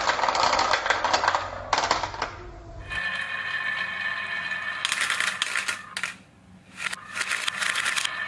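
Marbles rolling and clattering along a plastic marble-run track and gutter, with dense rapid clicking, a steady rolling ring, and bursts of clicks about five and seven seconds in.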